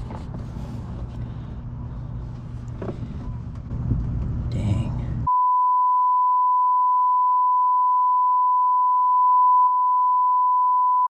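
A steady low hum with a few faint clicks. About five seconds in, a single steady high-pitched electronic beep tone cuts in abruptly, louder than the hum, holds unchanged for about six seconds, then stops suddenly.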